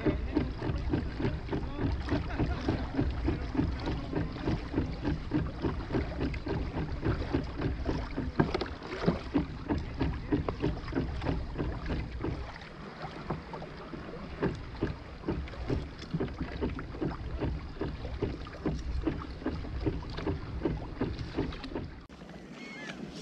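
Small kayak on the sea: water sloshing against the hull in a quick, even rhythm, with wind rumbling on the microphone; the wind rumble drops away about halfway through.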